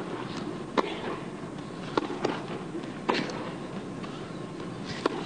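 Tennis ball being hit back and forth in a rally: sharp racket pops about once a second, with softer ball bounces between, over a faint arena hum.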